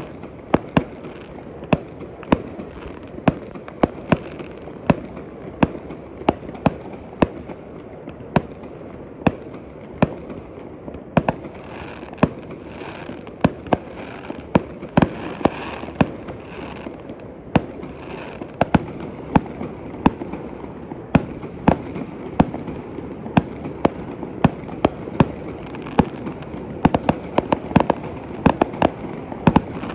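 Fireworks display: aerial shells bursting in an irregular series of sharp bangs, often one or two a second, over a continuous rumble of further reports. The bangs come thicker near the end.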